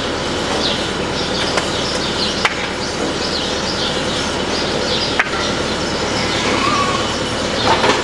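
Three sharp knocks, about a second and a half, two and a half and five seconds in, as wooden blocks are set against a galvanized steel sheep squeeze chute. Under them runs a steady rushing background noise, and small birds chirp throughout.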